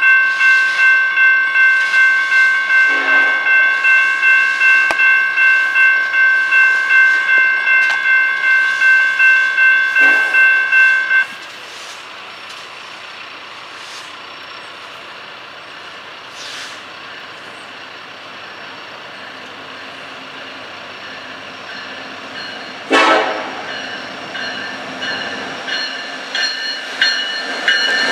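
Grade-crossing bell ringing at a steady two to three strokes a second, cutting off suddenly about 11 seconds in. An approaching Norfolk Southern freight led by NS 1168 follows, growing louder, with a short horn blast about two-thirds of the way through and more sound as the locomotive reaches the microphone at the end.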